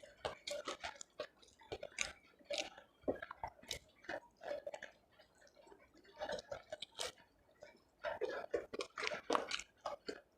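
Close-miked chewing of a mouthful of food, with wet clicks and crunches in irregular clusters and a quieter stretch in the middle.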